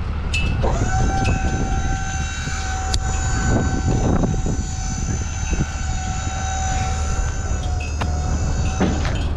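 Delivery truck's hydraulic tail lift whining steadily as the platform lowers a loaded pallet jack to the ground, with a few clanks; the whine starts under a second in and stops about nine seconds in. A low steady rumble runs underneath.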